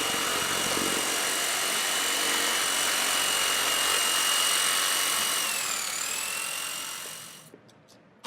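A small electric motor whining steadily at a high pitch. It wavers briefly about six seconds in, then winds down and stops near the end.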